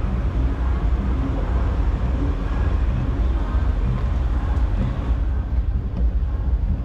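Background noise of a busy outdoor car show: a steady low rumble under a mixed hubbub, with no single sound standing out.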